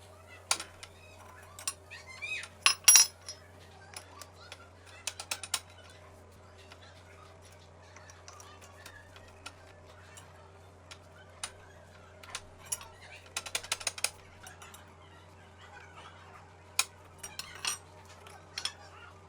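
Scattered light clicks and metallic clinks of small objects being handled, with a louder cluster about three seconds in and another group around thirteen to fourteen seconds, over a steady low hum.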